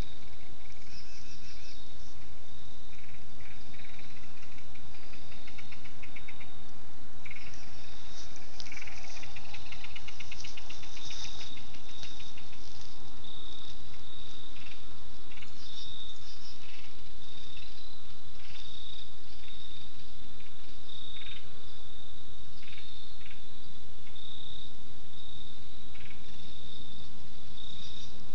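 Crickets trilling: one steady high trill throughout, with other faster, slightly lower pulsed trills coming and going, mostly in the first half.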